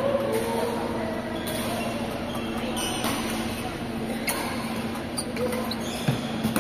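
Badminton hall background: a steady low hum with faint distant voices and a few sharp taps, the loudest near the end.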